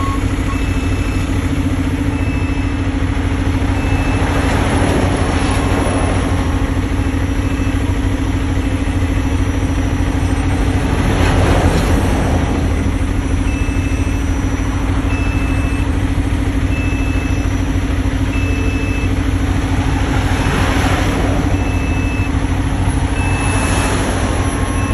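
Diesel engines of a dump truck and a road milling machine running steadily with a low drone. A backup alarm beeps about once every second and a half for stretches, and a few swells of rushing noise rise and fall.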